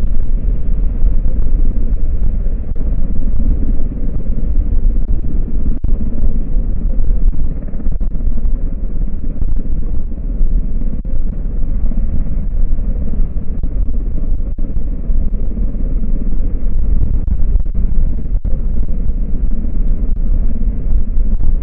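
A steady low rumble, heaviest in the deep bass, that holds level without rising or falling.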